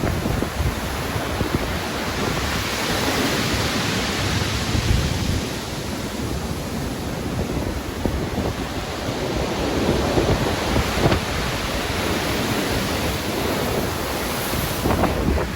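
Stormy sea with wind: a continuous rush of surf noise that swells and eases as waves break, with a deep low rumble underneath.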